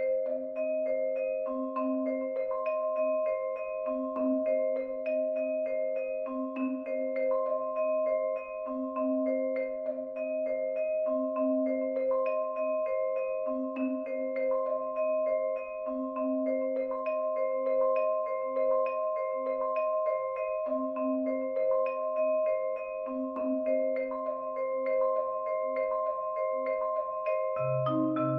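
Marimba and vibraphone playing a minimalist piece: repeating patterns of quick mallet strokes over steady ringing vibraphone tones. A new low note comes in near the end.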